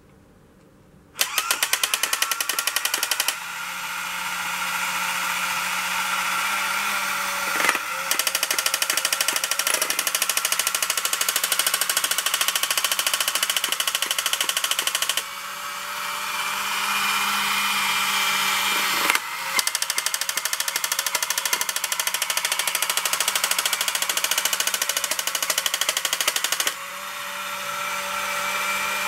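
Battery-powered toy tank switched on about a second in and running, its small motor whirring under a fast, even electronic rattle and held tones that change pattern every few seconds, with a brief click twice.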